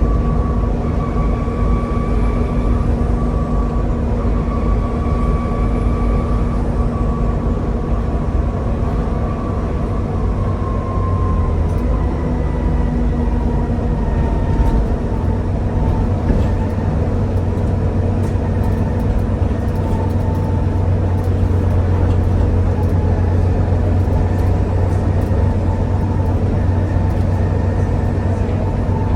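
Volvo B7TL double-decker bus driving along, its six-cylinder diesel engine and ZF gearbox giving a loud, steady drone with a high whine over it. About eleven seconds in, the whine drops slightly in pitch and the low drone grows louder, with a few light rattles after.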